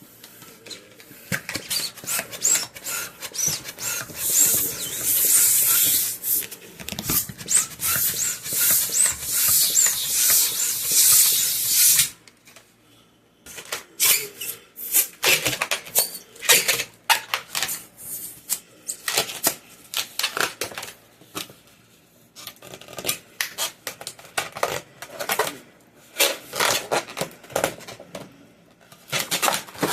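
Latex twisting balloon being handled, rubbing and squeaking. For the first twelve seconds there is a dense, hissy rustle full of clicks; after that come scattered sharp squeaks and taps with short pauses between them.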